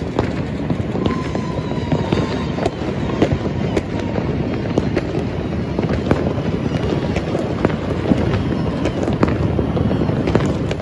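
Fireworks and firecrackers going off all around in a dense, continuous crackle of many rapid pops with sharper bangs among them. A faint falling whistle is heard about a second in.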